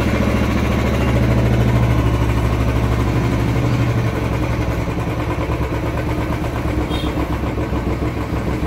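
Royal Enfield Classic's single-cylinder engine running at raised revs, then dropping to a lower, slower idle beat about four seconds in. It is running again after its flooding carburettor, whose float pin was jammed by debris, has been cleaned.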